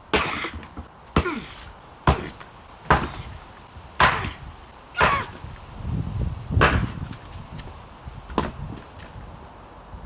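Axe striking and splitting logs on a chopping block: about eight heavy chops roughly a second apart, some followed by a short falling squeak. The chopping stops about two-thirds of the way through, leaving only light knocks.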